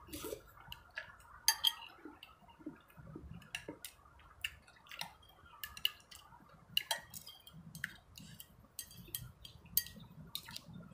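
Metal spoon and chopsticks clinking and scraping against a ceramic bowl of noodle soup during eating, a run of light, irregular clinks.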